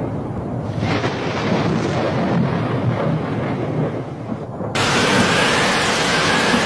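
Loud, deep rumbling noise that changes abruptly about a second in and again near the end, the second time into a brighter hiss with a faint wavering tone.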